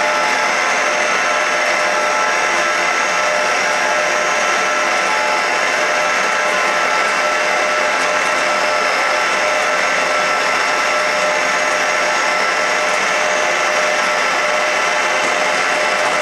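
Microcut Buffalo-Seiki 1740 centre lathe running under power with its spindle turning: a steady mechanical whine of several held tones over even machine noise.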